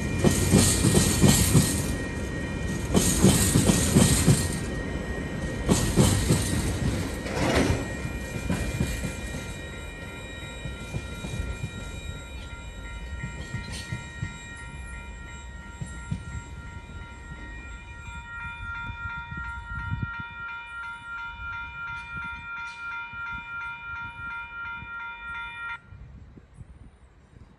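Freight train's container flat wagons rolling past, wheels rumbling and clattering with surges of high hiss as each wagon goes by, fading away as the train recedes. A level crossing's electronic warning bell rings with a steady pulsing beat, then stops suddenly near the end once the train has cleared.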